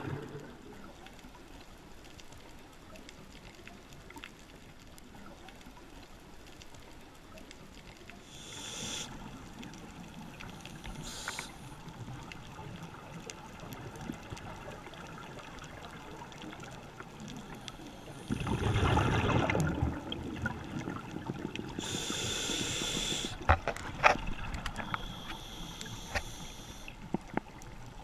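Scuba diver breathing through a regulator underwater: irregular bursts of exhaled bubbles, the loudest about two-thirds of the way through, with hissing breaths in between. A few sharp clicks come near the end.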